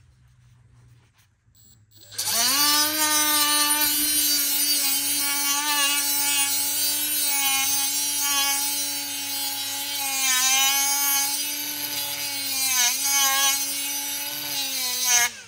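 A Milwaukee cordless 3-inch angle grinder starts about two seconds in and grinds burrs off the edge of a freshly notched tube. It runs with a steady high whine over a grinding hiss, its pitch sagging slightly now and then as it bears on the metal, then cuts off just before the end.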